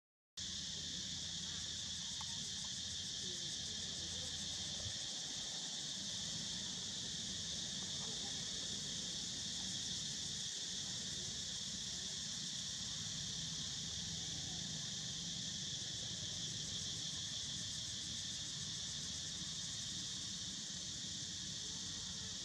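Steady, high-pitched chorus of insects, unbroken and even, over a low steady hum. The sound cuts out for a moment right at the start.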